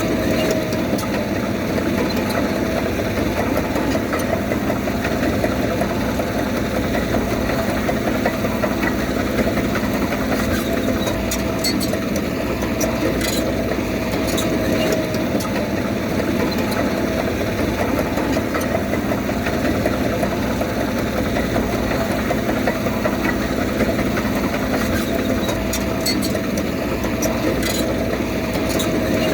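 Bulldozer's diesel engine running steadily, with a thin steady whine over the drone and a few sharp clicks now and then.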